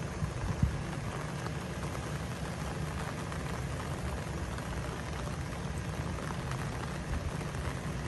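Steady outdoor hiss of light rain, with a low wind rumble buffeting the microphone and a small thump about half a second in.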